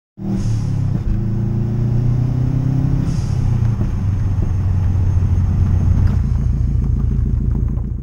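Turbocharged flat-four engine of a 1997 Subaru Impreza Turbo running: a loud, low, steady engine note with a fast pulse. It starts and cuts off abruptly.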